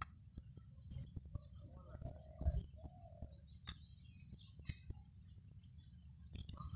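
Small birds chirping faintly and repeatedly, with a low two-part call about two and a half seconds in and a few light clicks.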